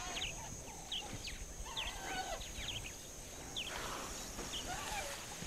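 Wild outdoor ambience: scattered short bird chirps and whistled calls, some gliding in pitch, over a faint hiss with a steady high-pitched hum underneath.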